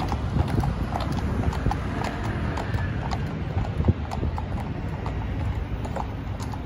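Two mounted police horses walking on an asphalt road, their shod hooves clip-clopping in a steady, irregular patter. City traffic runs underneath.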